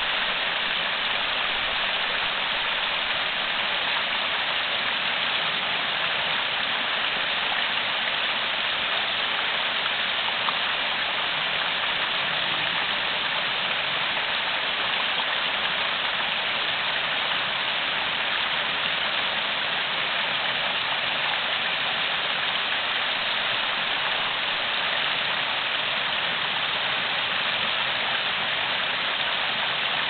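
Small rocky mountain stream trickling and splashing over stones and ice, a steady even rush of running water.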